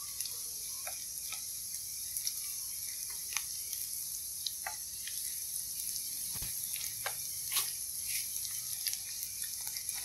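Mock fish and ginger frying in shallow oil in a pan: a steady high sizzle with scattered pops and crackles of spitting oil.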